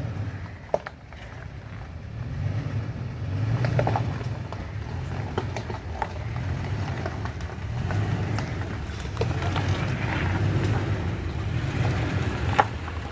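2021 Toyota Tacoma TRD Off-Road's engine running low as the truck crawls over rocks, the rumble swelling and easing with the throttle, with now and then a sharp click or crack of rock under the tyres.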